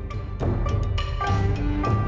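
Background music: a regular beat of struck notes over sustained pitched tones, getting louder about half a second in.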